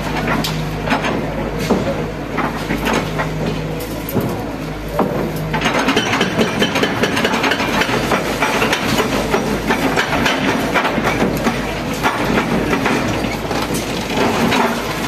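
Volvo wheeled excavator's diesel engine running, with sharp knocks of its arm and bucket against a masonry wall. About five seconds in, a long rush of crumbling brick and concrete crashes down and keeps crackling for several seconds.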